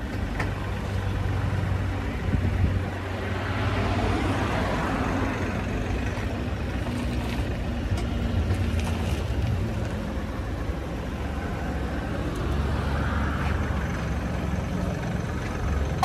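A vehicle engine running steadily at idle, with road traffic swelling past a couple of times, the louder pass about four seconds in.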